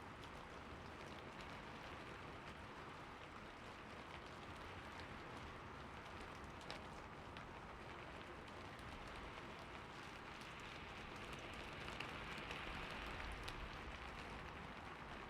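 Steady rainfall, an even hiss dotted with the ticks of single drops, growing a little heavier for a few seconds near the end.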